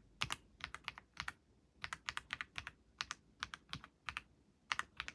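Typing on a newly unboxed keyboard: quick runs of three to five key clicks with short pauses between them.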